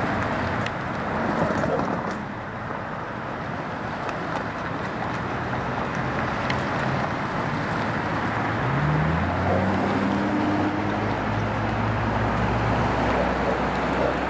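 Road traffic noise from cars passing on a wide street. About nine seconds in, a nearby car engine rises in pitch, then holds a steady hum.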